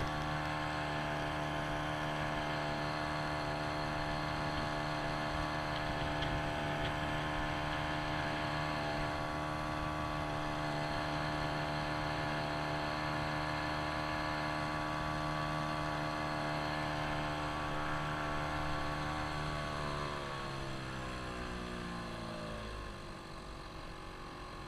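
Outboard motor driving a canoe at steady cruising speed, a constant drone. About twenty seconds in, the motor throttles back and its pitch falls.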